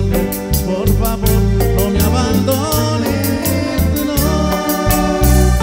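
Music playing: a song with a steady beat, pulsing bass and percussion under a melody line.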